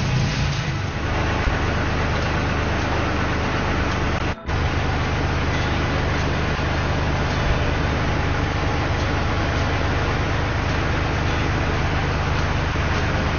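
Steady engine drone with a low hum and a broad rushing noise, like a motor vehicle running; it cuts out briefly about four seconds in.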